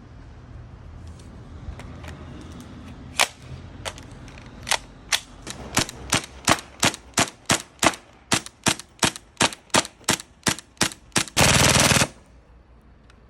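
Airsoft gun firing: a couple of spaced shots, then a steady string of single shots about three a second, then a rapid full-auto burst of about half a second near the end.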